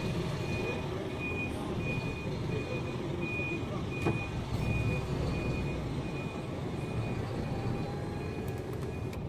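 Articulated lorry reversing: its reversing alarm beeps steadily about twice a second over the low running of the diesel engine, with a single knock about four seconds in.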